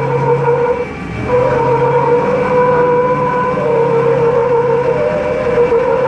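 Engines of a Hummer H2 and a John Deere 323E compact track loader working hard under load as they pull against each other on a chain. A steady, high engine note drops out briefly about a second in, then returns and holds.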